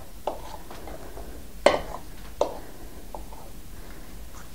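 Knife and fork clinking and scraping against a ceramic mixing bowl as lard is cut into flour, a few scattered clicks with the sharpest about a second and a half in.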